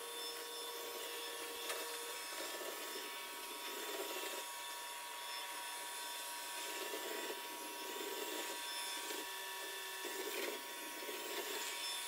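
Yeedi Vac 2 Pro robot vacuum running on a hardwood floor: a steady hiss with a faint whine, and a rougher sound that comes and goes every second or so as it sweeps up scattered cereal.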